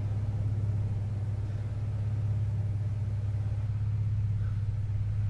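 Steady low rumbling drone from a horror film's soundtrack, unchanging throughout.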